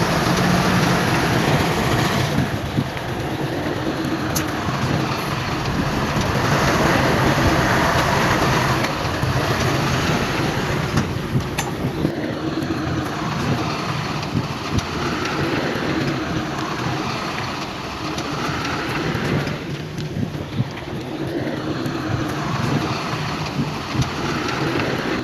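Heavy diesel earthmoving machinery running steadily, with a few sharp metallic clanks.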